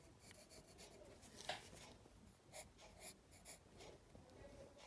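Faint scratching of drawing strokes on paper: a series of short, irregular strokes, the clearest about one and a half seconds in.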